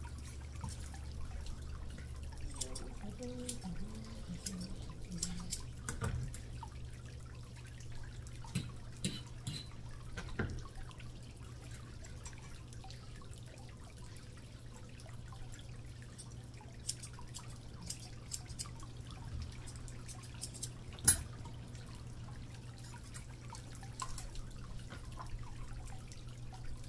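Water dripping and trickling steadily over a low hum, with scattered sharp clicks, the loudest about 21 seconds in.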